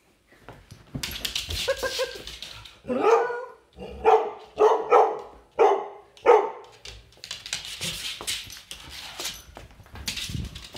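A dog barking in a run of about five quick barks, the first rising like a short howl. Rustling and scuffling noise comes before and after the barks.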